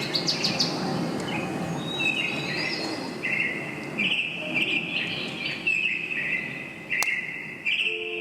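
Small birds chirping and singing in short repeated trills over a steady low rushing background noise, with one sharp click about seven seconds in.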